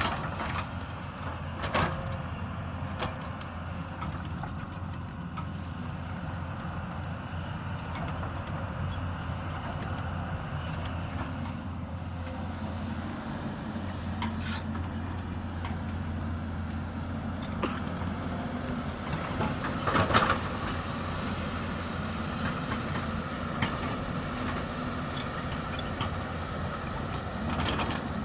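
Hyundai 220 excavator's diesel engine running steadily while it digs, with scattered knocks and clanks and a louder scraping burst about twenty seconds in.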